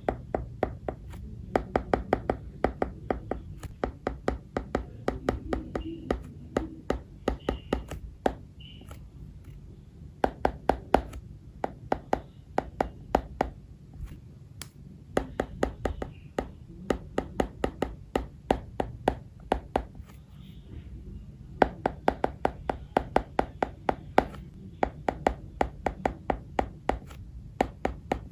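A stylus tip tapping and clicking on an iPad's glass screen during handwriting, in quick runs of sharp clicks broken by short pauses between strokes, over a steady low hum.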